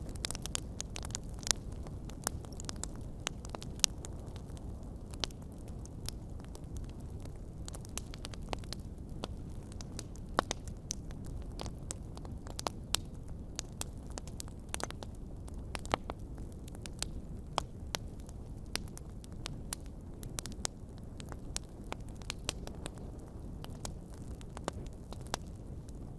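Fire burning in a fireplace: a steady low rumble of flames with irregular sharp crackles and pops.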